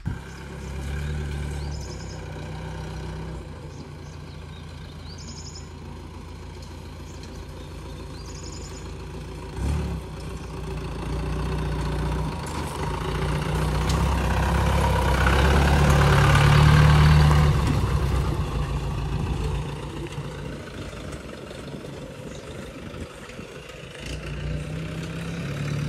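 Willys jeep's engine running as it drives over grass and up a muddy slope, with power put on and the engine getting louder for a few seconds in the middle of the climb before easing back. There is a single knock about ten seconds in.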